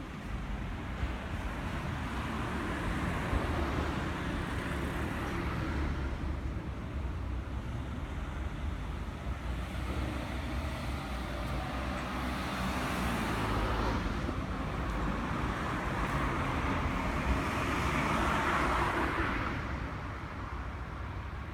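Kawasaki Zephyr 750's air-cooled inline-four idling steadily through a Moriwaki Monaka aftermarket exhaust. Passing traffic swells in and out a few times behind it.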